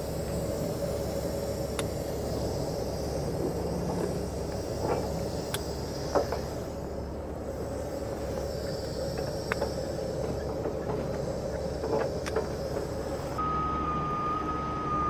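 Heavy rotator tow truck's diesel engine idling steadily, with several sharp metal clinks as chain hooks and shackles on its boom rigging are handled. Near the end a steady high tone comes in.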